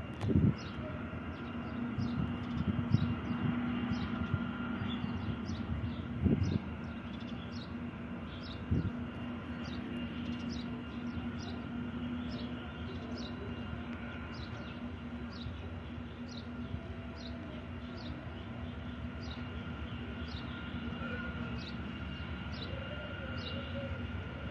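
Freight train rolling in the distance, a low steady hum, while a small bird repeats a short high chirp about every two-thirds of a second. A few dull thumps stand out, one right at the start and two more within the first nine seconds.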